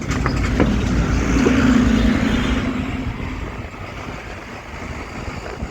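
A bus passing close by on the street: engine rumble and road noise swell over the first couple of seconds, with a steady engine hum, then fade away.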